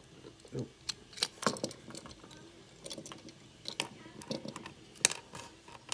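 Scattered light clicks and taps of a die-cast Hot Wheels car's parts being handled and fitted back together, with the sharpest click about five seconds in.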